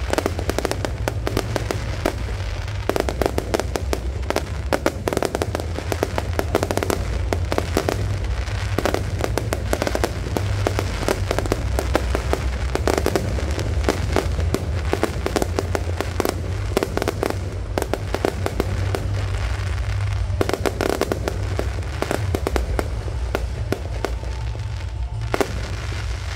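Fireworks going off without pause: a dense, rapid crackle of many sharp bangs and pops.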